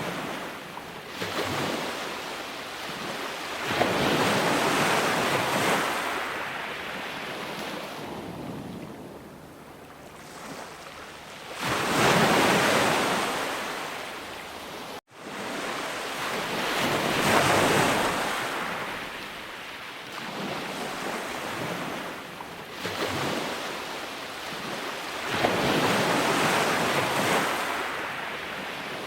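Ocean waves breaking and washing on a shore, each surge swelling and fading over several seconds. The sound cuts out for an instant about halfway, then resumes.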